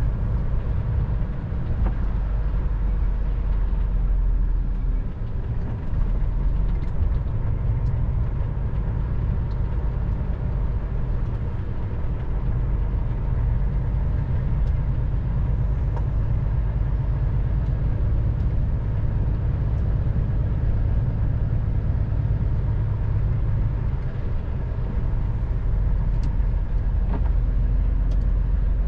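Steady low rumble of a truck's engine and tyres heard from inside the cab while it drives along a town street.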